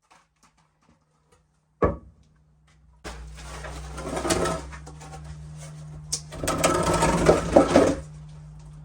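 A single sharp knock, then a small two-stroke chainsaw running with a steady low hum, growing louder and rougher twice for a second or so.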